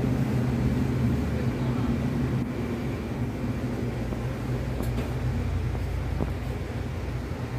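Steady low machine hum with a haze of background noise, with a few faint clicks.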